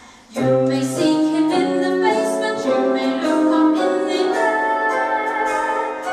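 A girl singing into a microphone over a backing track; after a brief lull the accompaniment comes in sharply about half a second in, with held notes that step up and down in pitch.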